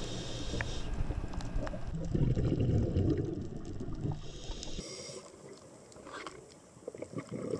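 Underwater camera audio of a scuba diver's exhaled regulator bubbles gurgling and rushing. It is loudest for a few seconds from about two seconds in, then quieter.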